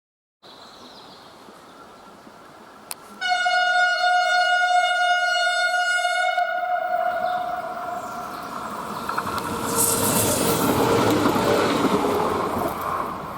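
DB class 426 and 425 electric multiple unit sounding its horn in one long steady blast of about three seconds, a few seconds in. The train then runs past with a swelling rush of wheel and running noise.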